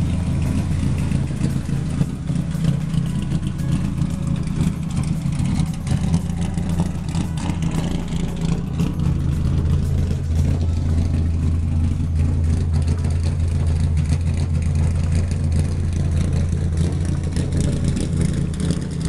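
Ford 427 SOHC 'Cammer' V8 idling steadily with a deep, low-pitched running sound.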